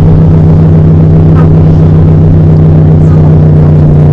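A pontoon boat's outboard motor idling, a loud, steady hum that does not change, with faint voices in the background.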